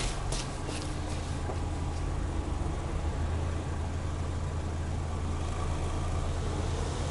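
Subaru Legacy B4 2.0i's flat-four boxer engine idling steadily, heard at the single exhaust tailpipe.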